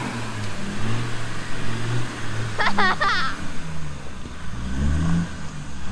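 Land Rover Discovery's engine revving up and down as it ploughs through a muddy, water-filled bog hole, climbing again near the end. About halfway through, an onlooker gives a short high whoop.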